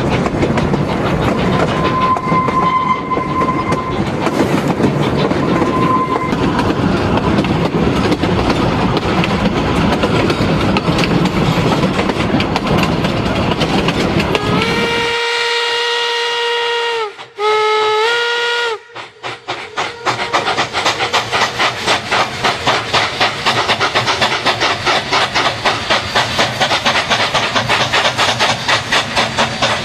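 Steam train running with a steady rumble and rattle. About halfway through, the steam whistle sounds: a long blast of about two seconds, then a shorter one. After that the running resumes as a fast, even beat.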